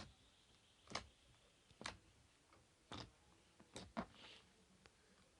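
Slime being squeezed and worked by hand, giving about six sharp clicks over four seconds, roughly one a second, then stopping.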